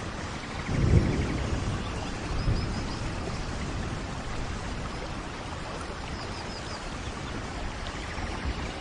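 Steady tropical rain falling, with a low rumble about a second in and a few faint, short, high bird chirps twice.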